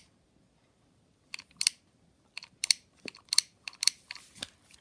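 Sharp, irregular clicks, about nine over three seconds, from a Baby Born doll's belly button being pressed again and again to pump out the water it was fed.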